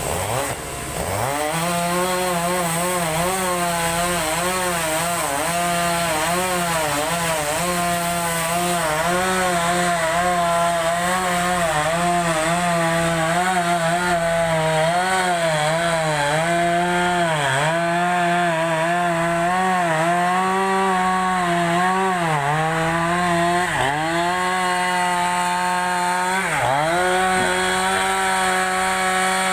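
Two-stroke chainsaw revving up about a second in, then running at full speed while splitting a large log lengthwise. Its pitch dips briefly several times.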